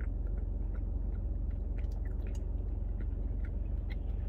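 A person chewing a mouthful of ice cream blizzard with cake pieces, with soft scattered mouth clicks over a steady low hum.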